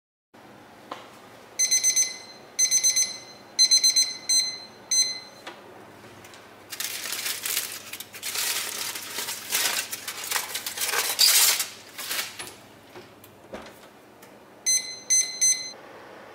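Electronic oven beeps in several quick clusters of short, high pips. Then aluminium foil crinkles loudly as the foil cover is pulled off a loaf tin in the oven, and another brief run of beeps comes near the end.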